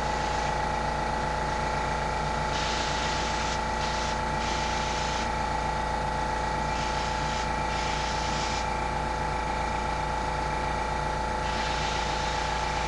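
Airbrush spraying paint in short hisses, on and off several times, over a steady motor hum.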